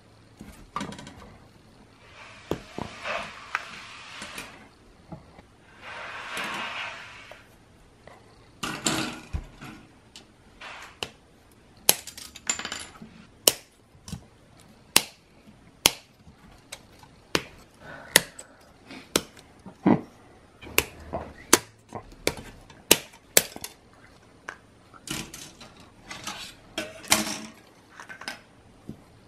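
Plastic model-kit runners rustling and clattering as they are handled, then a long run of sharp snaps about one a second, typical of hobby nippers cutting parts off the plastic runners.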